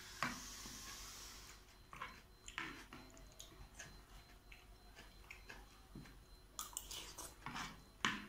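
Faint close-up chewing of fried flat rice noodles, with scattered small clicks and scrapes of a metal spoon against the plate.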